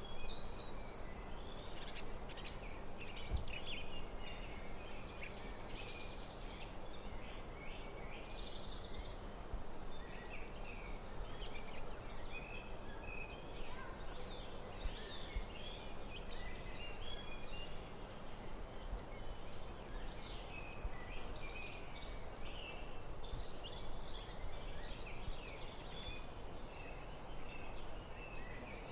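Several birds singing in a forest, a steady stream of short chirps and trills over a constant low background hiss.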